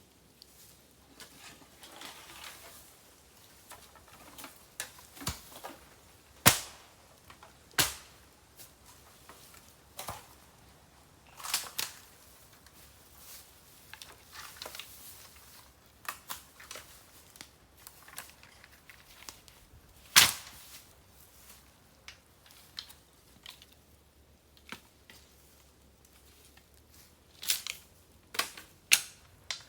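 Bamboo burning on an open fire, crackling with irregular sharp pops and cracks. The loudest cracks come about six and a half, eight and twenty seconds in, with a quick run of them near the end.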